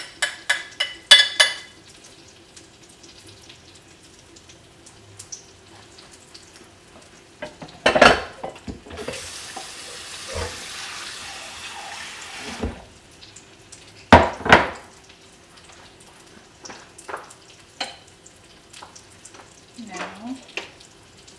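Kitchen clatter of utensils against dishes and pans: a quick run of light clinks at the start, loud knocks about 8 and 14 seconds in, and a steady hiss lasting about three and a half seconds between them, over a faint steady hum.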